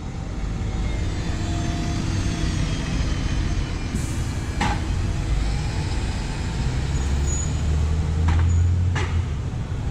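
Diesel city bus pulling away through an intersection, its engine running over street traffic noise. Three sharp knocks come at about the middle and near the end, and a heavier engine rumble swells in the last few seconds.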